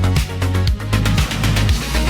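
Electronic dance music with a steady pulsing beat and bass line.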